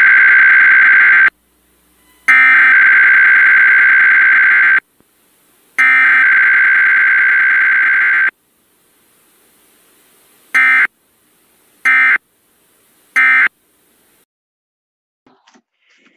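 Emergency Alert System SAME data tones: three long, harsh bursts of digital data about a second apart, the alert header. After a short pause come three brief end-of-message bursts about a second apart.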